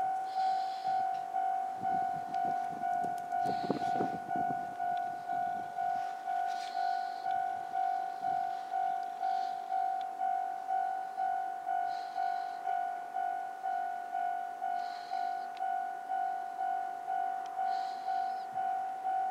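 Japanese level-crossing warning bell ringing steadily, about two strikes a second. A railcar's low rumble and clatter swells briefly about two to four seconds in.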